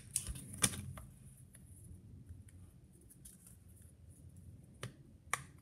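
Small plastic puzzle pieces from a toy blind bag being handled and pushed together: a few sharp clicks, one early and two close together near the end, with faint ticks between.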